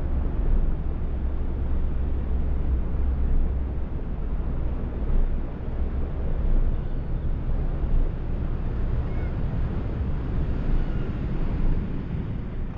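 Steady low rumble of wind buffeting the microphone, with a faint even hiss above it.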